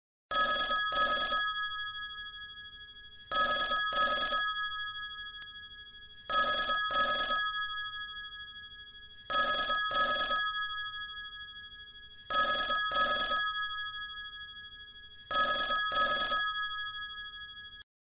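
Analog telephone bell ringtone: six rings about three seconds apart, each a quick double burst of bell strikes whose tones hang on and fade away.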